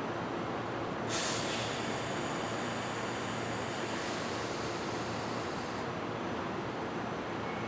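Steady rumble of distant jet aircraft engines, with a hiss that starts suddenly about a second in and cuts off about six seconds in.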